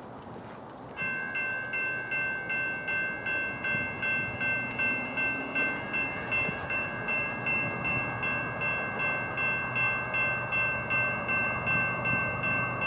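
Railroad grade-crossing warning bell starts about a second in and rings steadily at about three strikes a second, a signal that a train is approaching.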